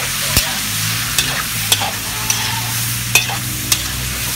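Chicken heads sizzling in hot oil in a wok while a metal spatula stirs them, the spatula clicking against the wok about six times.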